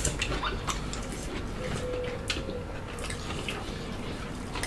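Close-miked eating sounds of people eating with their hands: wet smacks and chewing, with scattered sharp clicks.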